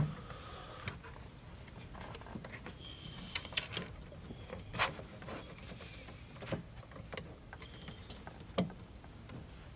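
Scattered light clicks and knocks, a few seconds apart, as a ventilator is shifted about on a cart's metal mounting plate to line up its screw holes.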